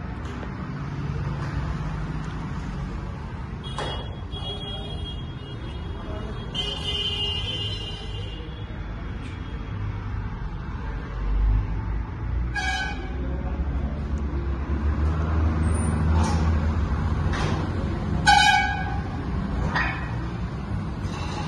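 Road traffic with engines running and car horns honking: two longer horn blasts between about four and eight seconds in, then short toots near the middle and near the end.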